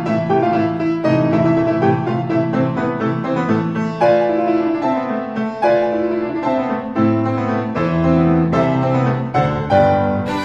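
Background music played on piano, with quick successive notes over a lower sustained part.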